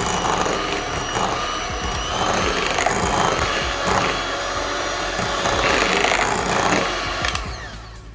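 Electric mixer running in cake batter, a loud steady whirring that starts suddenly and stops near the end.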